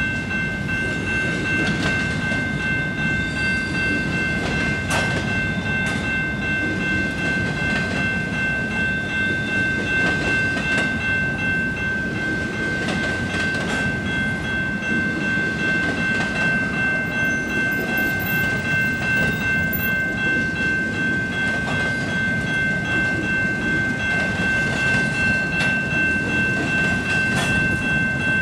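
Empty intermodal flatcars of a CPKC freight train rolling past over a level crossing: a steady rumble with occasional clacks of wheels over rail joints. A steady high-pitched ringing tone sounds over it without a break.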